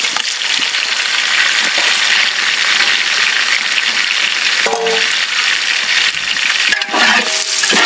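Chopped onions and green chillies sizzling steadily as they fry in hot oil.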